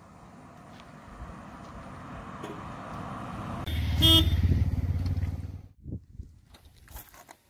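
A motor vehicle passing close by on the road, its rumble building and then cutting off suddenly, with a short horn toot about four seconds in.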